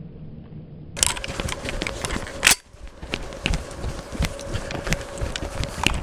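Quick footsteps crunching over wet, patchy snow and old grass, with the rustle of clothing and gear, starting about a second in after a quieter moment. One loud sharp knock comes about two and a half seconds in.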